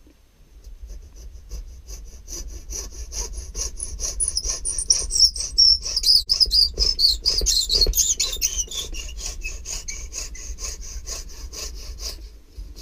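Hacksaw with a worn blade cutting through the end of a green-worked ash hammer haft, in quick, even back-and-forth strokes that start about a second in, are loudest in the middle and stop just before the end.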